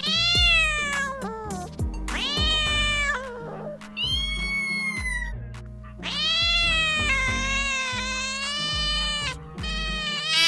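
A cat meowing five times, each call rising then falling in pitch. The fourth call, about six seconds in, is a long drawn-out meow lasting about three seconds. Background music plays underneath.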